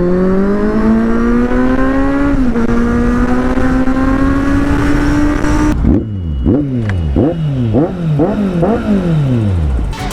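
Kawasaki Z800 inline-four motorcycle engine pulling under acceleration, its note climbing steadily with a brief dip in pitch a couple of seconds in. After an abrupt cut near the middle comes a run of quick throttle blips, about two a second, each revving up sharply and falling straight back.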